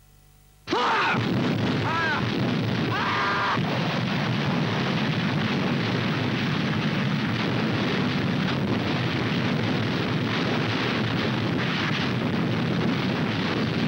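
Massed artillery barrage: a sudden, dense, unbroken din of gun blasts and explosions starting about a second in, with a few brief pitched sounds over it in the first three seconds.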